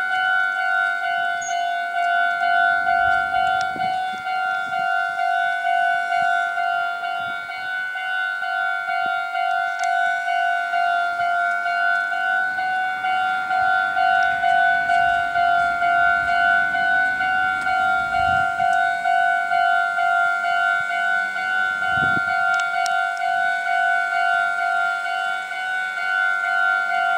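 Japanese railway level-crossing warning bell ringing: a clear electronic ding repeated rapidly and evenly without pause, the signal that a train is approaching.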